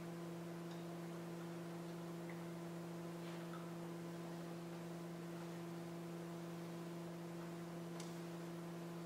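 Steady electrical hum, two low tones with fainter ones above, with a few faint clicks, the sharpest about eight seconds in.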